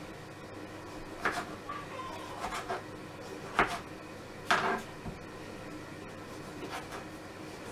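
Kitchen knife cutting tomatoes on a plastic chopping board: half a dozen irregular sharp knocks and taps, a few of them close together.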